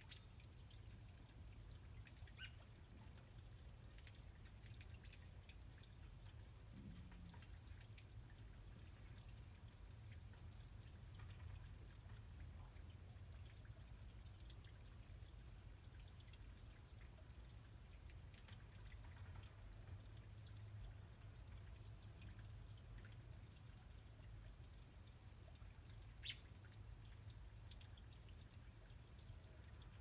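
Near silence outdoors: a faint low rumble, broken by a few soft, sharp ticks, the clearest near the end.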